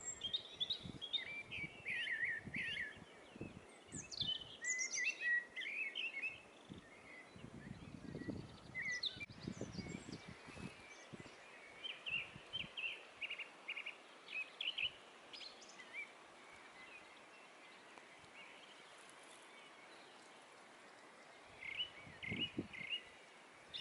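Songbirds singing in the early morning: a mix of short high chirps, trills and rapid repeated phrases, quieting for several seconds past the middle. A few soft low thumps come and go beneath the song.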